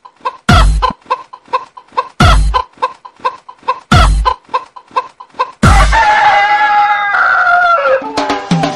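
Dance music track built on chicken-clucking samples: short clucks about four a second over a heavy bass thump roughly every second and a half. About six seconds in the thumps stop for a long rooster-like crow that falls in pitch, and then the beat returns.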